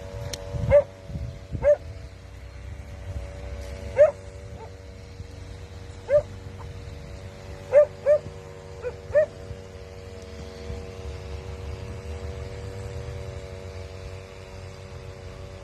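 A dog barking in short, sharp yips, about eight times over the first ten seconds, some in quick pairs, over a steady droning hum.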